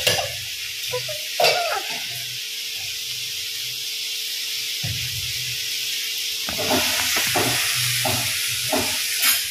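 Spice masala frying in a pan, a steady sizzle, with a metal clink about a second and a half in. In the last few seconds a spatula stirs and scrapes the pan.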